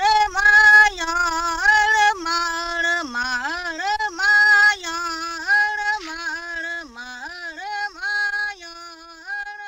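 A solo female voice singing a slow melody without accompaniment, holding and sliding between notes, growing quieter over the second half.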